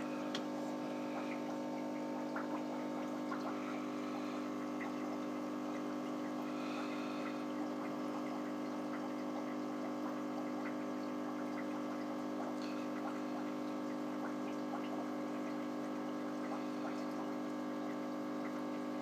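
Aquarium pump humming steadily, with a faint crackle of water and small ticks over it.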